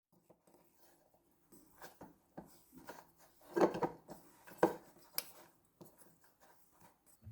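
Kitchen utensils and dishes being handled in a small room: irregular light clicks, scrapes and rubbing, with a louder clatter about three and a half seconds in and sharp clicks a second or so later.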